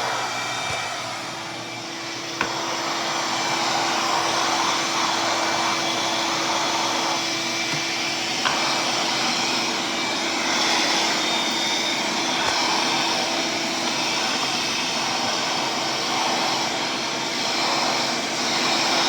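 Ridgid 5.0 HP 12-gallon wet/dry shop vac running steadily while vacuuming, its rush of air shifting in tone now and then. Two sharp clicks, one about two and a half seconds in and one about eight and a half seconds in.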